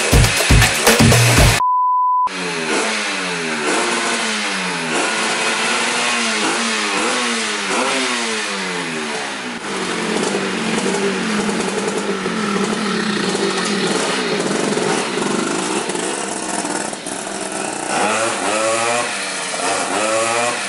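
A short stretch of beat-driven music, then a steady beep, then a tuned two-stroke scooter engine, a Spartan with a Pinasco cylinder, revved over and over, its pitch rising and falling in quick sweeps.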